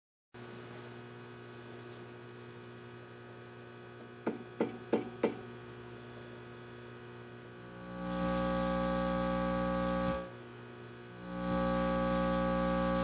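Zero Zone tube preamplifier's right channel giving a steady buzzy mains hum, a fault that does not change with volume or source. A little past four seconds in there are four sharp clicks. The hum swells much louder at about eight seconds, falls back at about ten, and swells again near the end as a pencil is brought close to the right channel's tube.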